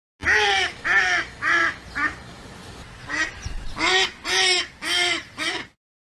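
Duck quacking: a run of about four short quacks, a short pause, then about five more.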